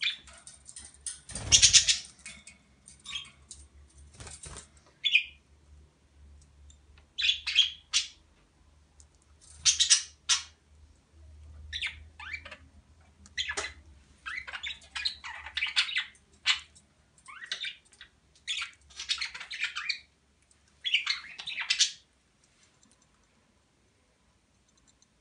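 Pet budgerigars calling: a run of short, high chirping calls about once a second, the loudest about a second and a half in, dying away a few seconds before the end.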